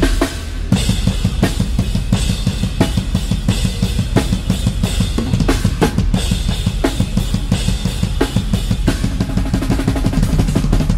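Metal drum kit with Zildjian cymbals played hard: rapid, continuous bass drum strokes under sharp snare hits about every 0.7 s, with cymbals crashing.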